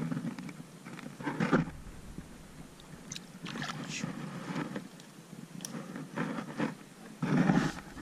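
Shallow water sloshing and splashing in short, irregular bursts as a fish is released by hand, with the loudest splash near the end.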